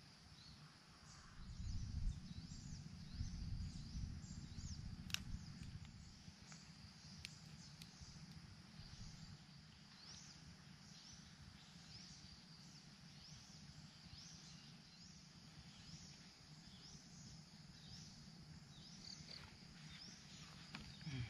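Small birds chirping continually over a low rumble that swells about two to four seconds in, with a few sharp crackles from a small campfire of dry sticks catching light.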